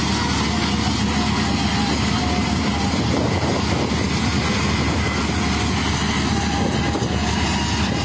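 Combine harvester running steadily while it cuts standing wheat: an even, unbroken noise of engine and machinery.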